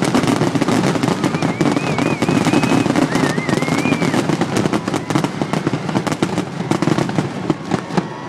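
Fireworks going off in a dense, rapid string of bangs and crackles, many a second, thinning out near the end.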